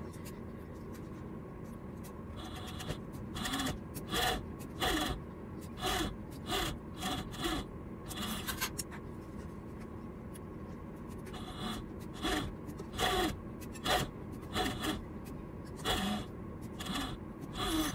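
Industrial overlock serger stitching a side seam, running in many short bursts of about a third of a second over a steady hum, with fabric being handled between bursts.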